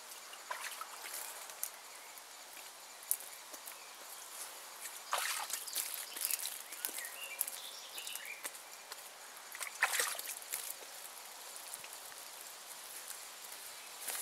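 Liquid scooped by hand from a bucket and splashed over a wet animal hide, with sloshing and trickling and two louder splashes, about five and ten seconds in.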